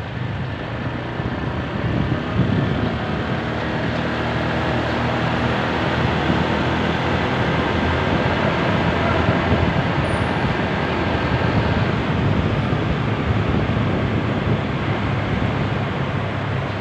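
Motorcycle engine running steadily at cruising speed, mixed with wind and road noise, while riding through a covered underpass.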